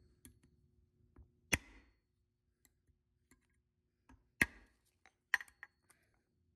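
A few scattered, sharp metal clicks and taps as a screwdriver blade works a lock washer onto the pivot of a chrome-plated Recaro seat hinge. The loudest click comes about four and a half seconds in.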